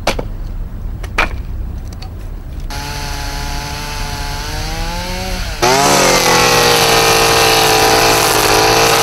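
Two sharp axe strikes splitting firewood on a chopping block, then a petrol chainsaw running as it cuts a tree. About halfway through, a louder petrol brush cutter cuts in, its engine revving up and holding high.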